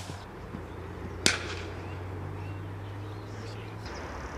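A single sharp crack about a second in, over a steady low outdoor background.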